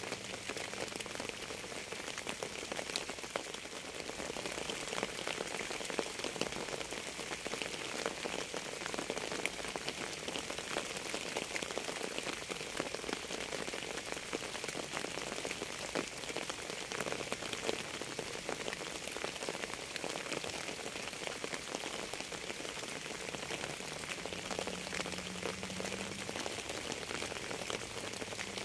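Steady rain falling on a surface: an even hiss thick with the patter of individual drops.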